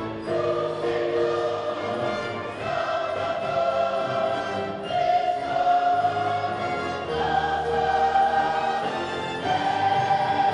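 Large mixed choir singing with a concert wind band of brass and woodwinds, in long held chords that change about every two seconds.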